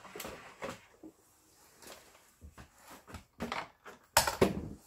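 Plastic outer housing of a Singer 7466 sewing machine being handled and lifted off its chassis: scattered light clicks and knocks, with a louder clatter about four seconds in.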